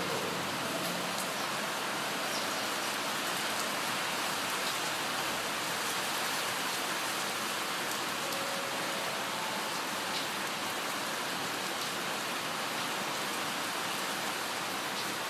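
Heavy rain pouring down on the train and platform, heard from inside the driver's cab as a steady, even hiss with a few faint ticks; the uploader suspected the downpour was mixed with hail.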